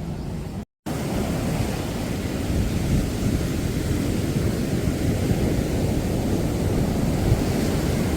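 Steady rushing noise of wind on the microphone and sea surf, heaviest at the low end, broken by a brief dropout under a second in.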